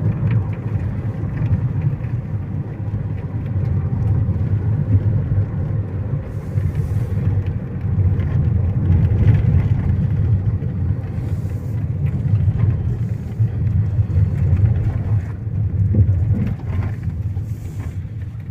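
Mahindra KUV100 being driven: a steady low rumble of engine and road noise, with no knocking from the newly replaced steering rack assembly.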